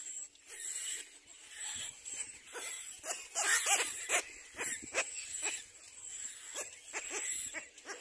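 Little black cormorant chick begging at the nest: a run of short, repeated calls, loudest around the middle.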